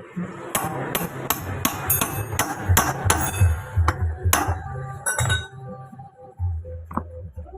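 Repeated hammer strikes, about three a second, stopping about five and a half seconds in, over background music.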